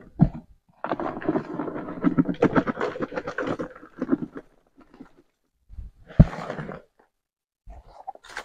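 A container scraping and rattling as wood ash is scooped out of a plastic bucket, with a single knock a little after six seconds.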